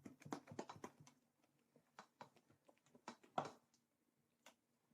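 Faint, scattered soft clicks and squishes of urad dal batter being mixed in a bowl, the clearest about three and a half seconds in.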